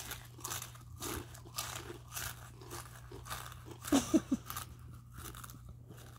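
Someone chewing crunchy rolled tortilla chips (Takis), a crisp crunch about twice a second. A brief murmur of voice about four seconds in.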